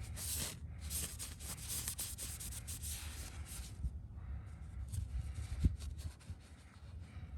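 A shop towel rubbing and wiping in scratchy strokes, cleaning spilled oil off around a freshly installed oil filter; the strokes ease off about four seconds in, and a single low thump comes near the end.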